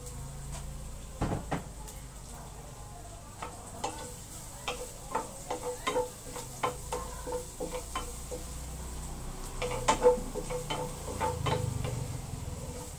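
Wooden spatula stirring and scraping garlic in a stainless steel frying pan, with many short knocks against the pan, the loudest about ten seconds in, over a light sizzle of the garlic frying as it is sautéed until brown.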